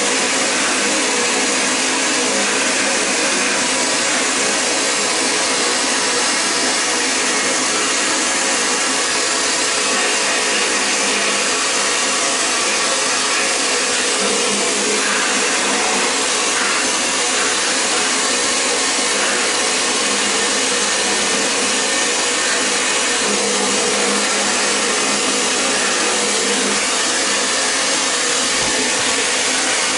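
Vapor blasting gun spraying a water-and-abrasive slurry driven by compressed air onto a cylinder head inside the blasting cabinet: a loud, steady hiss.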